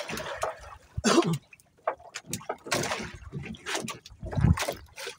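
Water splashing and sloshing in a few irregular bursts, with scattered light knocks.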